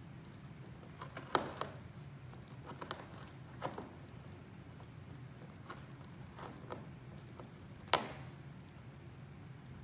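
Scottish Fold cat biting and tearing at corrugated cardboard: irregular crunches and small rips, with two sharper snaps, one just over a second in and another near the end.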